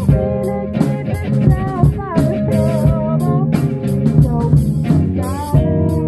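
Live rock band playing: a woman singing into a microphone over electric guitar and drum kit.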